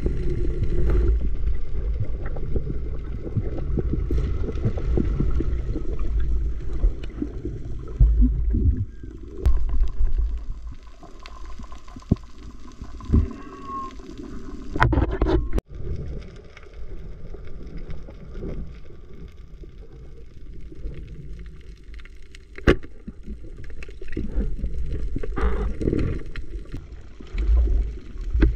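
Underwater sound picked up by a camera in its housing: a muffled low rumble of water and movement, with scattered sharp clicks and knocks. The rumble drops somewhat about eleven seconds in.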